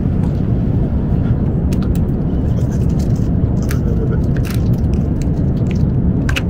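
Steady low rumble of a jet airliner's cabin in flight, with a few light clicks and taps from handling at the meal tray.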